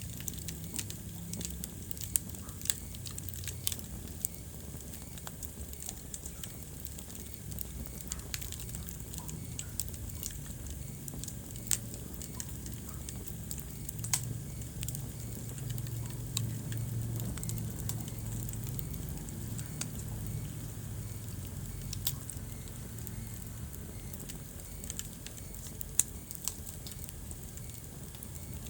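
Wood fire crackling in a fireplace: irregular sharp pops and snaps over a low steady rumble of the flames, with a louder pop about two seconds in and another near the end.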